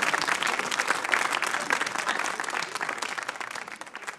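Audience applauding, a dense clatter of many hands that thins out and dies away near the end.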